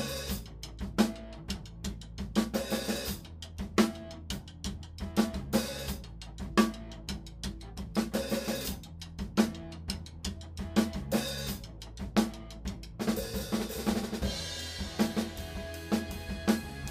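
Rock drum kit played at a steady groove, with bass drum and snare hits under the cymbals. About thirteen seconds in, the cymbals wash in more heavily.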